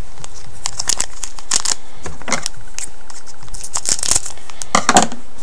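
A hockey card pack's wrapper crinkling and tearing as gloved hands open it, in a run of irregular short rustles.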